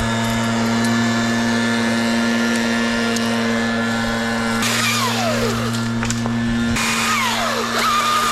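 A steady engine drone runs throughout. About halfway in and again near the end, a chainsaw is revved and its pitch falls away as the throttle is let off.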